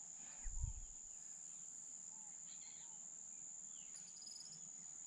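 Faint riverside ambience: a steady high-pitched insect drone, like crickets, with a few scattered bird chirps and a quick run of ticks near the end. A low bump about half a second in.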